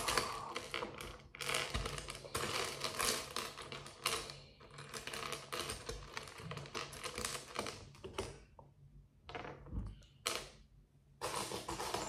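Loose plastic building bricks clattering and rattling as a hand rummages through a pile of them. The rattling comes in runs, broken by a few short pauses.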